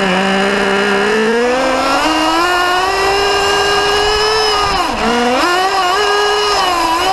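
Radio-controlled car's motor running at high speed. Its note climbs as the car accelerates away and then holds steady, drops sharply about five seconds in as the throttle is eased, and picks up again.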